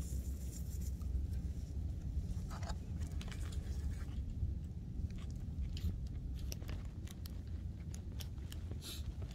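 Chewing of food close to the microphone, with scattered small clicks and crackles over a low steady rumble.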